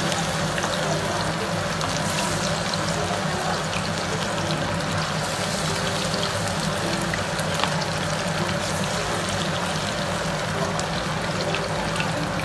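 Batter-coated chicken pieces deep-frying in hot safflower oil: a steady sizzle with scattered small crackles and pops.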